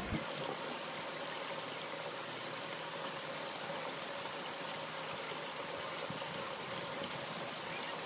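Mountain stream water flowing steadily over rocks.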